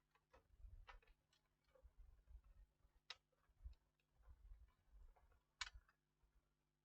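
Near silence with a few faint, sharp clicks and soft knocks, two of them clearer than the rest: plastic handling sounds of a laptop battery being fitted back into the laptop.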